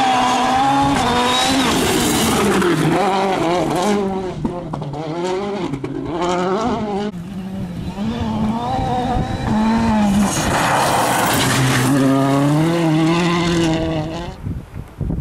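Citroën DS3 WRC rally car at speed on gravel, its 1.6-litre turbocharged four-cylinder engine revving hard and dropping back again and again through gear changes. The engine is loudest as the car passes close, about ten to fourteen seconds in, with gravel crunching under the tyres.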